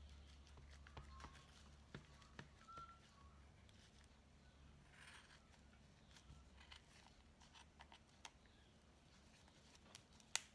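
Faint snips of scissors cutting through wet felted wool: scattered quiet clicks of the blades, with one sharper snip near the end.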